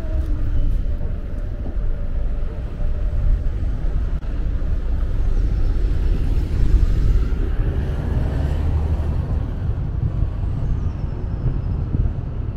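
Busy road traffic: a steady low rumble of passing car, bus and lorry engines, with a rising whine about six to eight seconds in.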